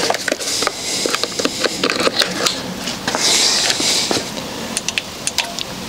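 Clicks, knocks and handling noise as an infrared curing lamp on its stand is grabbed and swung into position, with a brief rustle about three seconds in.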